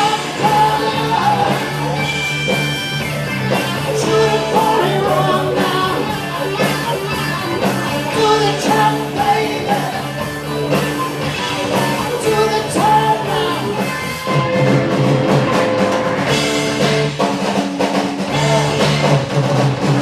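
A rock band playing live: electric guitar lines and drum kit over a steady bass part, with some singing.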